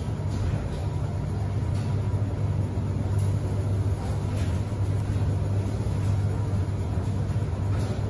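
Commercial front-loading launderette washing machine in its final spin: a steady low hum and rumble from the spinning drum and motor.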